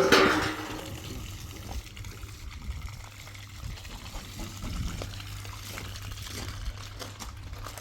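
Water poured out with a loud splash at the start, then a faint, steady trickle of pouring water with small clicks.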